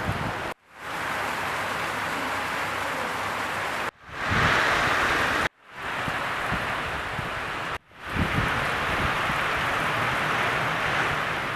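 Steady rain with wind during a storm, a constant hiss. It cuts off abruptly four times and fades back in after each cut.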